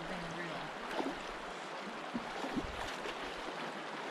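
Steady rush of the shallow Kenai River current flowing past, with a few brief splashes or knocks about a second in and again around two and a half seconds in.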